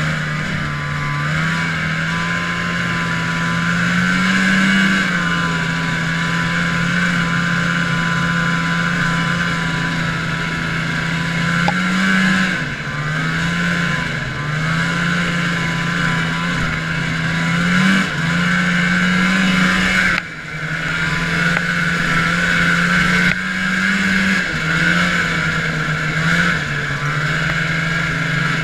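1980 Arctic Cat Panther 440 fan-cooled snowmobile's two-stroke engine running under way, its pitch rising and easing with the throttle every few seconds. The level dips briefly about twenty seconds in.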